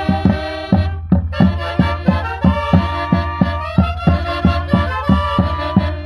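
Saxophone band playing a folk tune: several saxophones carry the melody together over a steady beat on two large bass drums, with a short break about a second in.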